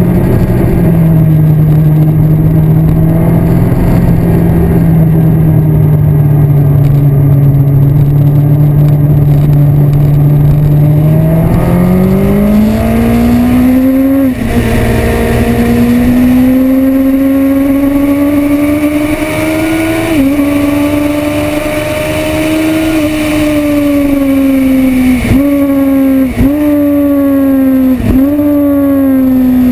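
Yamaha R1 sportbike's inline-four engine heard from onboard. It holds a steady low note through a corner, then climbs in pitch under acceleration about a third of the way in. The pitch dips briefly twice as it keeps pulling, and three quick, sharp dips come near the end.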